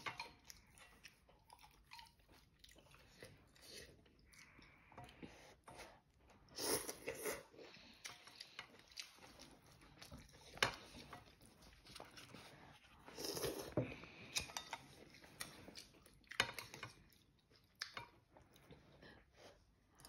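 A person slurping and chewing instant noodles, with two longer, louder slurps about seven and thirteen seconds in and a few light clicks.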